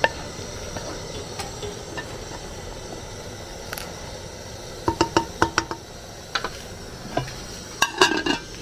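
Spoon knocking and scraping against a cooking pot as the soup is stirred, in short ringing clinks bunched about five seconds in and again near the end, over a steady hiss.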